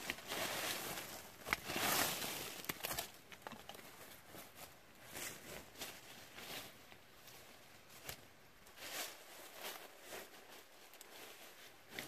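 Dry, leafless wild rose (multiflora rose) brambles and brush rustling and crackling as they are pulled apart and trampled by hand, loudest in the first few seconds, then in smaller scattered rustles with a few sharp snaps.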